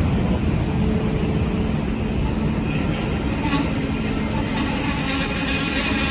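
Model railway train running along the layout track: a steady rumble of wheels and motor with a thin, steady high whine.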